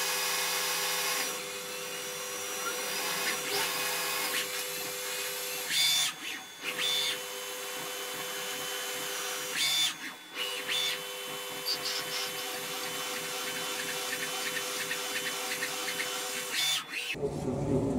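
Tormach CNC lathe drilling into a spinning bar under flood coolant: a steady machine whine over the hiss of coolant spray. The sound breaks off briefly twice and stops about a second before the end.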